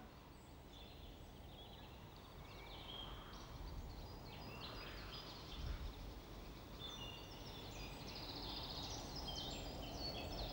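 Small songbirds singing in quick, high trilled phrases, growing busier over the last few seconds, above a low steady background rumble.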